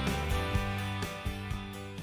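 Background music with a steady beat, fading out.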